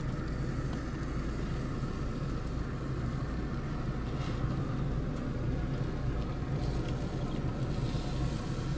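A steady low mechanical hum, like a motor running, with no change through the stretch.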